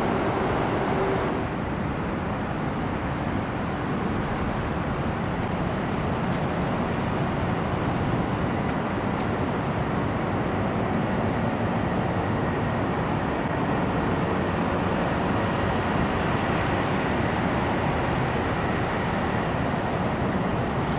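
Steady traffic noise from vehicles on an elevated expressway overhead, a continuous rumble with no breaks, with a faint high whine in the second half.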